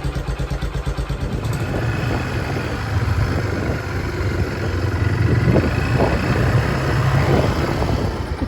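A small engine just started, running steadily with a rapid, even putter and revving up slightly about three seconds in.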